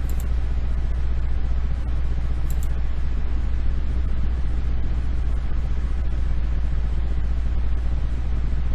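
Steady low hum over a constant background hiss, the same bed of noise that runs under the narration, with two faint high clicks, one at the start and one about two and a half seconds in.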